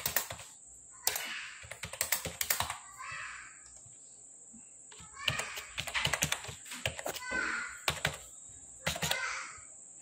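Computer keyboard typing in several short bursts of keystrokes, with pauses of a second or two between them.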